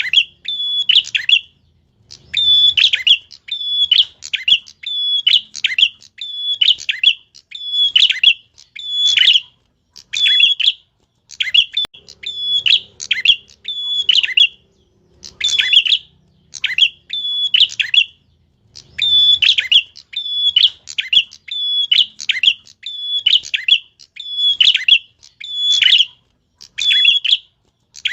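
A tilek songbird singing continuously and hard: short, sharp, shrill chirping phrases, about one a second, with brief gaps between them.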